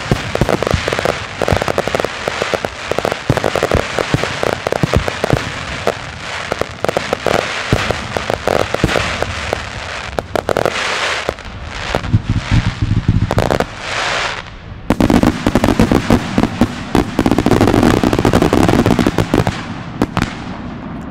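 Display fireworks going off in a dense barrage of rapid bangs, heaviest in the second half, thinning out shortly before the end.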